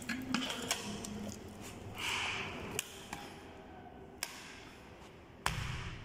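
Plastic double socket faceplate being handled and pressed onto its wall box: scattered sharp plastic clicks and taps, a short rustle about two seconds in, and a heavier thump near the end.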